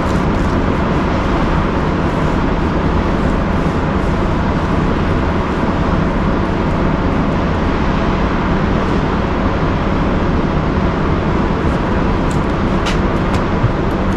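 Steady loud mechanical drone of a noisy work area, with a low hum underneath, and a few sharp metallic clicks near the end.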